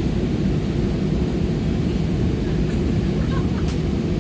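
Steady low rumble of an airliner's engines and air systems heard from inside the passenger cabin.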